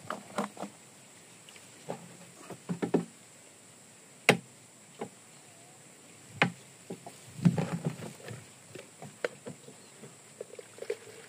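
Plastic containers being handled: scattered knocks, taps and clatters of a plastic jerrycan and jug, with a sharp single knock about four seconds in and another a couple of seconds later.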